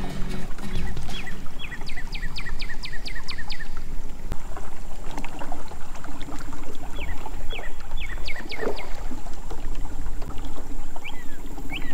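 A boat's motor running steadily as the boat moves over calm water. Over it, a bird calls in quick runs of high, falling notes: a long run of about eight notes early, a shorter run near the middle, and a few more notes near the end.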